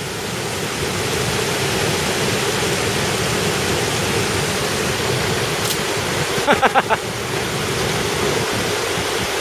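Waterfall rushing steadily, with a brief human call about two-thirds of the way through.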